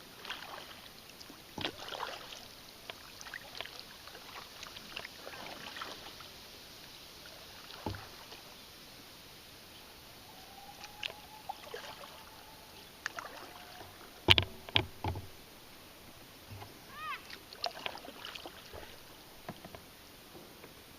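Kayak on the move in shallow river water: irregular paddle splashes and scattered knocks against the hull, the loudest a quick cluster of knocks about two-thirds of the way through.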